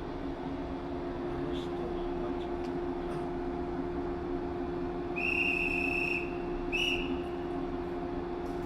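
A high, steady whistle sounds twice, a long note of about a second followed by a short one, over a continuous hum from a train.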